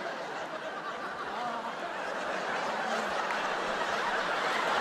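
Audience laughing at a comedy punchline, a dense crowd noise that swells steadily louder.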